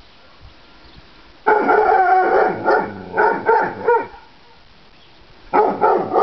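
Weimaraner barking: after a quiet start, a burst of several loud barks begins about one and a half seconds in, then a pause, and another burst of barks near the end.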